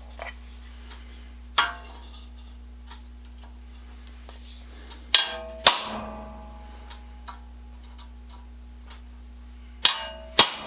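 Sharp metallic clanks of metal parts or tools knocking on a workbench, each ringing briefly: one, then a pair about halfway, then another pair near the end, over a steady low hum.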